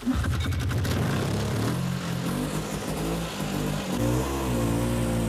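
Snowmobile engine starting up and revving as the machine pulls away. Its pitch steps up and down a few times, then settles into a steady run about four and a half seconds in.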